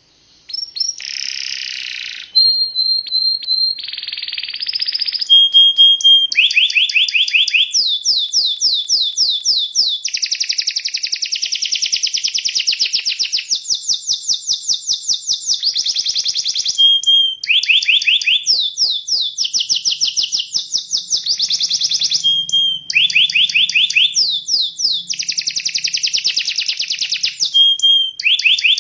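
Domestic canary singing a fast, rhythmic song. It is made of rapid trills of repeated falling notes that switch to a new phrase every second or two, with buzzy rolls and short steady whistled notes in between.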